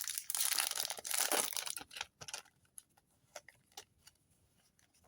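Foil booster pack wrapper crinkling and tearing for about two seconds, then a few light clicks of cards being handled.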